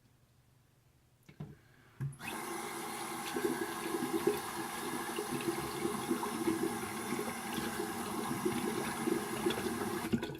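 Sink tap turned on about two seconds in, water running steadily into the basin, then shut off shortly before the end.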